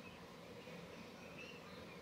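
Near silence: faint room tone with a low, steady hiss.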